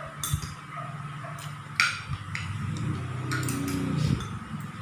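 Metal spoons and forks clinking and scraping on plates during a meal: a few sharp clicks, the loudest a little under two seconds in.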